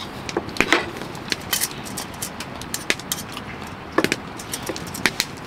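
Metal spoon clinking and scraping against a small stainless steel pot as cooked white rice is scooped out into a wooden bowl: irregular sharp clicks and knocks over a steady background hiss.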